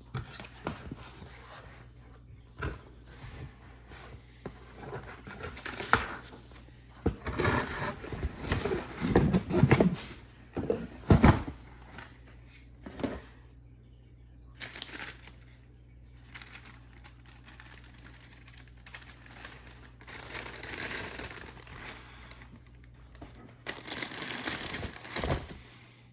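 Paper and cardboard crinkling and rustling as a shoe box is opened and its wrapping handled. It comes in irregular bursts with quieter stretches between, over a low steady hum.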